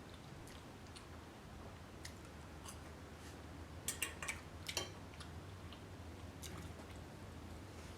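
Faint sounds of a person eating: chewing, with a cluster of sharp clicks about four to five seconds in.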